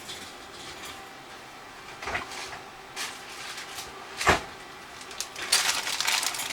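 Three separate knocks of things being set down or a box or drawer handled on a work table, the loudest about four seconds in. From about five and a half seconds in there is a busy clatter of small tools being taken out and handled.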